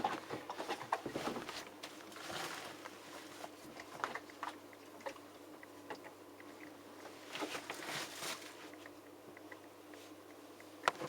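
Faint scattered clicks, taps and rustles of handling, over a low steady hum.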